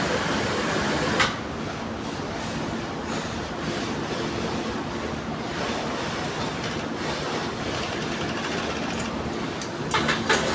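Industrial sewing machine running steadily, a continuous mechanical whirr with a low hum. A sharp click about a second in, after which it runs a little quieter, and a few clicks near the end.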